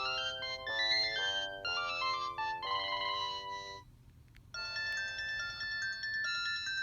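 Polyphonic ringtone melody from a Panasonic KX-TGA106 cordless phone handset, stepping through a tune of chord-like notes. It stops about four seconds in, and after a short pause a different, higher-pitched ringtone begins.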